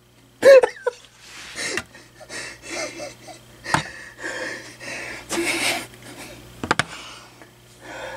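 A person laughing breathlessly in a run of short wheezy gasps, with a few sharp clicks near the end.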